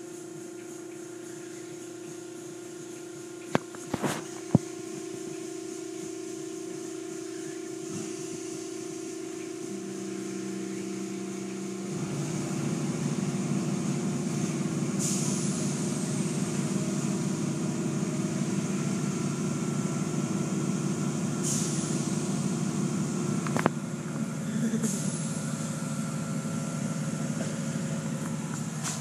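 Automatic car wash machinery running with a steady motor hum. About twelve seconds in it grows louder and deeper as the cloth curtains and water spray work over a car, with a few short hissing spurts of spray.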